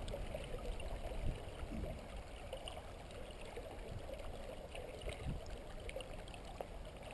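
River water flowing and lapping, a soft steady rush with small faint splashes.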